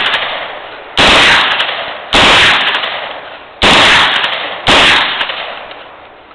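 Heckler & Koch MP5A3 9 mm submachine gun firing four short bursts of automatic fire, about a second apart, each dying away in a long echo.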